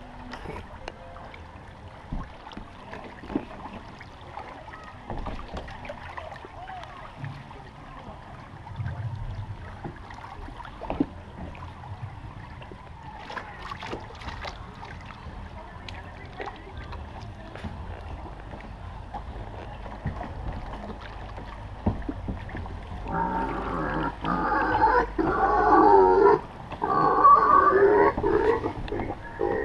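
Water running and sloshing around a flume-ride boat as it drifts along the channel, with occasional small knocks. About 23 seconds in, loud recorded pig grunting and oinking begins from a ride sound effect and goes on to the end.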